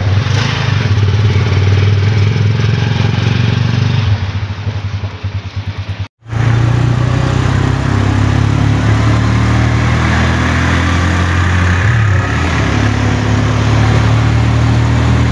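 A motor vehicle's engine running steadily with road noise, heard loud and close, cut off abruptly about six seconds in and starting again straight after.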